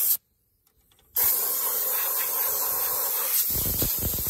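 Compressed air hissing from an air blowgun, blowing dust out of the radiator and vents. A short blast stops just after the start; after about a second of silence a steady blast starts and holds until near the end.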